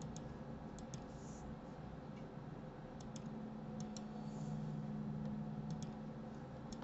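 Faint computer mouse clicks, about half a dozen spread through, each a quick double tick of press and release, over a low steady hum.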